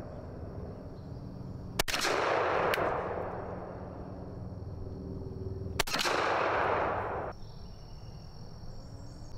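Two 12-gauge shotgun shots about four seconds apart from a Browning Maxus II semi-automatic firing 2¾-inch steel #3 loads. Each is a sharp crack followed by a long rolling echo, and the second echo cuts off abruptly.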